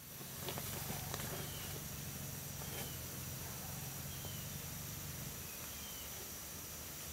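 Woodland ambience: a steady hiss with a bird's faint, short falling chirp repeated about every second and a half, and a low hum that stops about five and a half seconds in.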